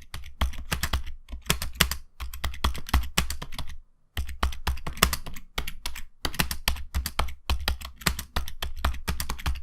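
Typing on the Logitech K270's rubber-dome keys: a fast, uneven run of key clicks, with a short pause about four seconds in.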